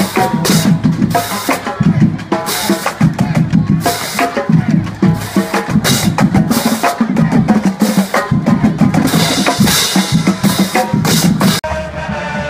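Drumline playing: snare drums, bass drums and cymbal crashes in a fast rhythmic cadence, cutting off suddenly near the end.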